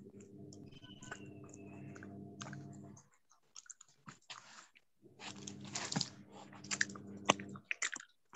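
Faint open-microphone noise on a video call: a low electrical buzz that cuts in for about three seconds, drops out, then returns for about two and a half seconds, with scattered clicks and rustles of handling over it.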